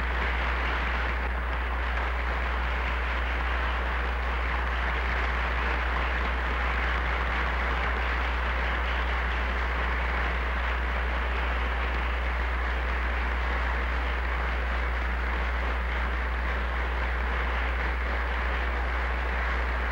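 A banquet audience applauding, a steady even clapping that breaks out right after the toast is proposed and keeps going, over a low steady hum in the old broadcast recording.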